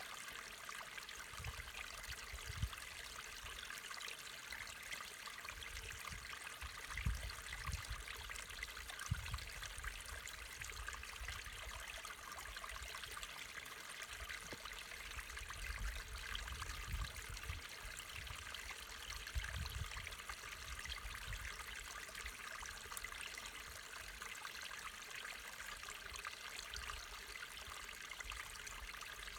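A small, shallow stream trickling and splashing steadily over stones in a narrow rocky channel. A few brief low rumbles come through now and then.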